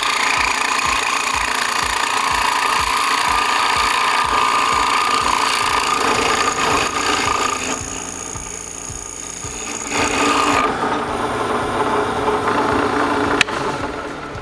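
Drill press running with its bit cutting into a model engine's cylinder head, drilling out a stripped glow plug hole. The sound changes about ten seconds in, and a sharp click near the end is followed by a quieter stretch.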